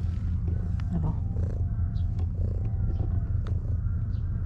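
Domestic cat purring steadily while being stroked on the head, a continuous low rumble.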